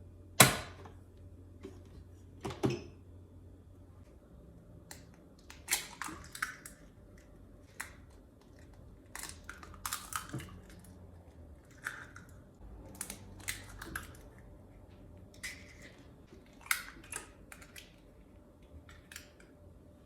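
Irregular clicks and knocks of kitchen utensils and containers being handled, with one sharp knock about half a second in and scattered lighter taps after it.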